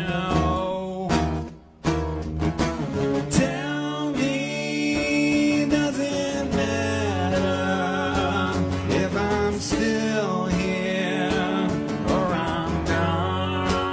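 Live acoustic rock: two steel-string acoustic guitars strummed under sung vocals. The music stops briefly about a second and a half in, then carries on.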